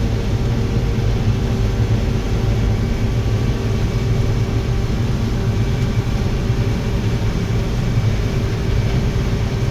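Combine harvester running steadily under load while cutting corn, heard from inside the cab: a constant low drone with faint steady whining tones above it.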